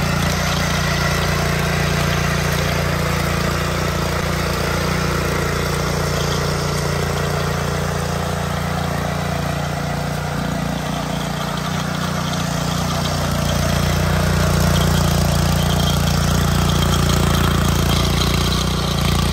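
Trâu Vàng mini tiller's 7 hp four-stroke OHV petrol engine running steadily under load as its rotary tines work the soil, getting a little louder over the last few seconds.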